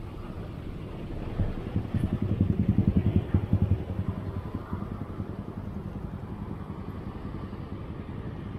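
A motorcycle engine passing close by, with a rapid throbbing that rises about a second and a half in, is loudest around three seconds, then fades back into steady traffic and road noise.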